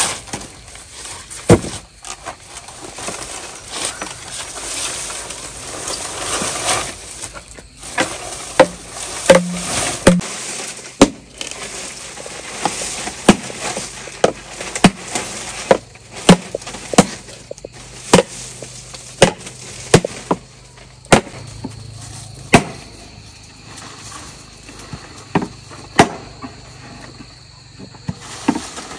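Repeated sharp knocks of a tool striking bamboo during house building, irregular and roughly one a second. A noisy rustle runs under the first several seconds.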